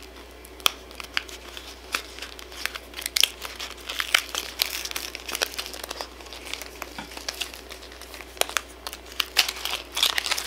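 Crinkly Shopkins blind-bag wrapper being handled and torn open by hand, an irregular run of crackles and rustles.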